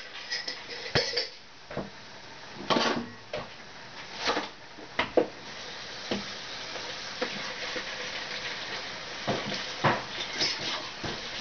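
Kitchen clatter: dishes, pans and utensils knocked and set down in scattered clinks and knocks. A steady hiss sets in about six seconds in.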